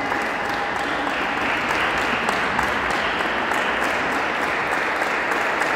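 Steady applause, many hands clapping at once in a reverberant sports hall.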